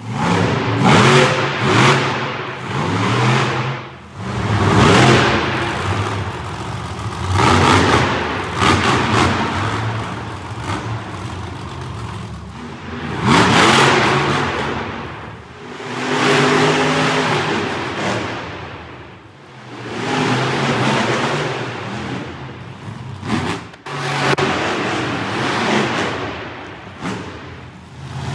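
Monster truck engine revving hard in repeated surges, pitch climbing and falling away every few seconds as the truck throttles through its run.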